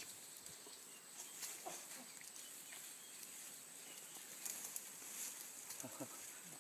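Elephant chewing tree branches: faint, scattered crunching and crackling of wood and leaves.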